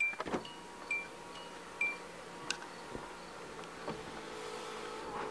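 Power sunroof motor of a 2004 Hyundai Elantra running with a faint steady hum as the glass panel slides closed, starting about halfway through and growing slightly louder. Near the start come three short high chirps about a second apart, then a click.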